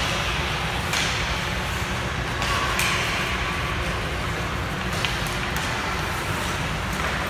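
Ice hockey play: skate blades scraping the ice and sticks and puck knocking a few times, over a steady low rumble in the rink.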